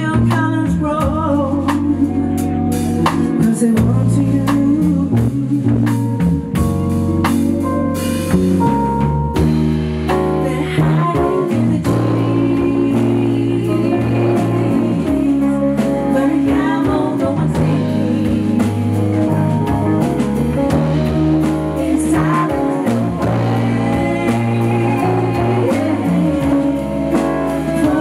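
Live band playing a song: singing over drum kit and electric guitar.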